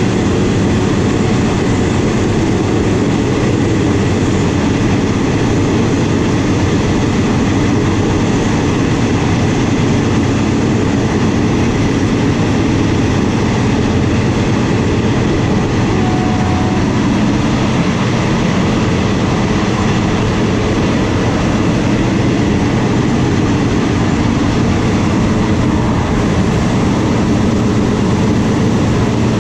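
Passenger railway carriage running at about 82 km/h, heard from inside: a steady rumble of wheels on rail and the moving coach.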